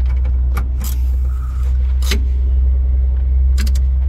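A steady low rumble runs throughout, with several sharp clicks and knocks, the loudest about a second in and two seconds in and a quick cluster near the end. These are metal parts and tools at work as the power brake booster is bolted up behind the dash.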